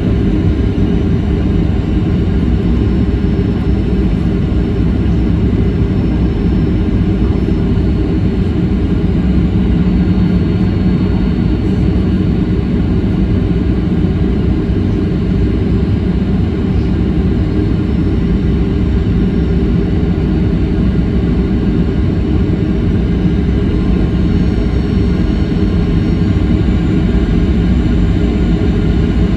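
Airliner cabin noise on final approach: a steady, deep rush of jet engines and airflow heard from inside the passenger cabin, with a faint high whine that shifts slightly in pitch.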